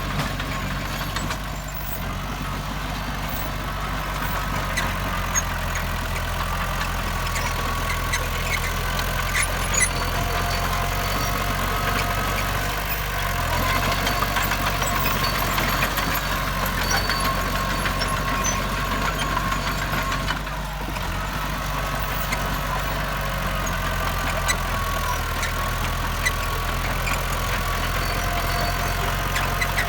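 Heavy diesel earthmoving machinery running steadily, with a constant low engine tone, a higher whine and occasional short clanks.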